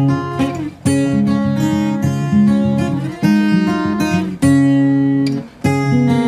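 Background music: acoustic guitar chords struck about every second and left to ring.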